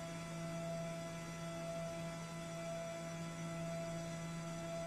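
Steady hum with a few fixed tones, from a glassblowing micro lathe running as it turns a glass rod in the torch flame.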